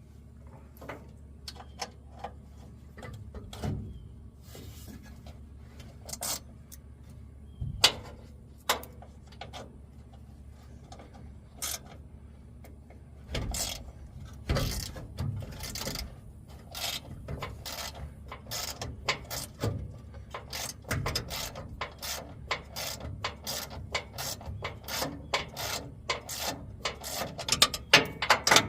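Hand ratchet wrench clicking as bolts are worked loose: scattered clicks at first, then faster, denser runs of ratcheting in the second half.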